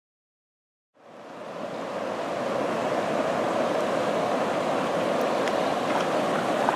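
River water rushing steadily. It fades in about a second in and cuts off abruptly at the end.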